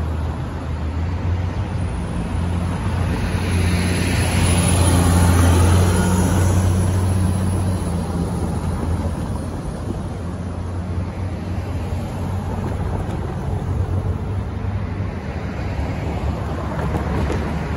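Road traffic passing through a street intersection: cars and a pickup drive by one after another, the loudest pass about five to six seconds in and another near the end, over a low steady engine hum that fades out about fourteen seconds in.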